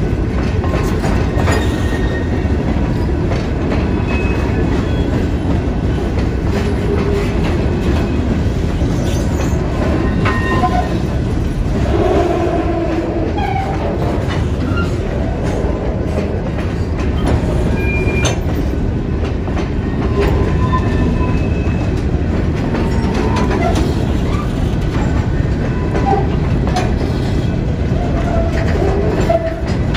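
Empty stone-train hopper cars rolling slowly past close by: a steady rumble and rattle of steel wheels on the rails, with short high wheel squeals now and then.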